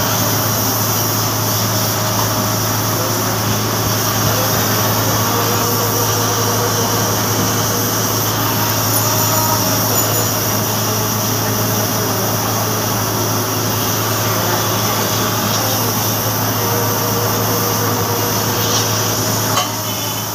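Gas welding torch flame burning with a steady hiss over a constant low hum, the level dipping slightly near the end.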